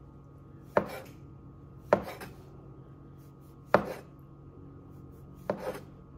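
Chef's knife cutting through a log of soft dough and knocking on the countertop: four separate sharp chops about one to two seconds apart, the last one doubled.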